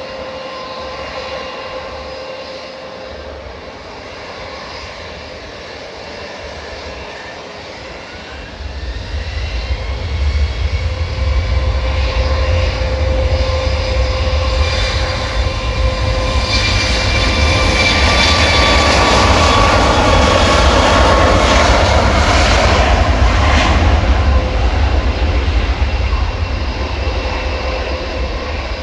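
Large jet airliner's engines: a steady whine at first, then about a third of the way in thrust comes up with a rising tone and a deep rumble that builds to its loudest around two-thirds through before easing off, as on a takeoff roll going past.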